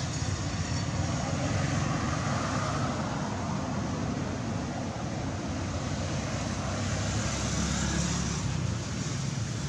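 Steady outdoor background rumble and hiss, even throughout with no distinct event.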